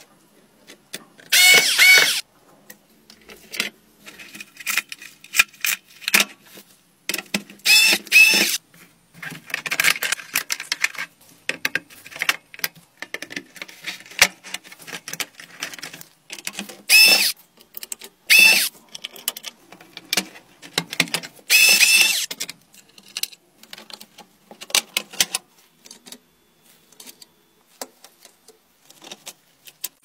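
An Apple keyboard's plastic case being taken apart by hand: a screwdriver turning screws, plastic parts clicking, knocking and scraping. Several short, loud, high squeaks stand out.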